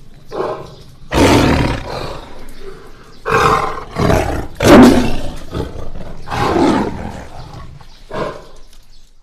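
Tiger roaring, a series of about five loud roars and growls, the loudest nearly halfway through.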